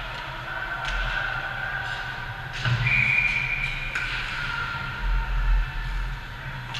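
Ice hockey play in a rink: a few sharp knocks of sticks and puck, over the steady hum of the arena.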